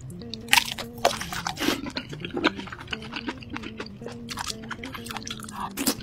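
Close-miked biting and chewing of a grilled sausage: repeated crunchy snaps of the casing as it is chewed, the loudest bite about half a second in, over background music.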